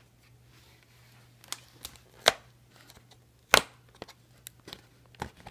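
Fingers picking at a cardboard advent calendar to pry open a perforated door: a run of small taps and clicks starting about a second and a half in, with two louder snaps about a second apart. A faint steady low hum runs underneath.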